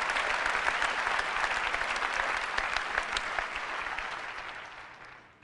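Large audience applauding, a dense patter of many hands clapping that dies away over the last second or so.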